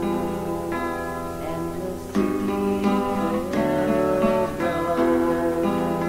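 Instrumental music on acoustic guitar, chords plucked and left to ring, a new chord every second or so.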